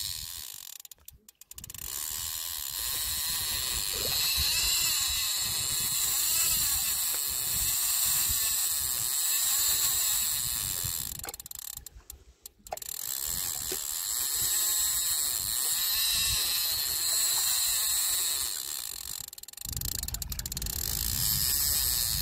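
Spinning reel's drag ticking as a hooked carp pulls line off the spool, stopping briefly twice.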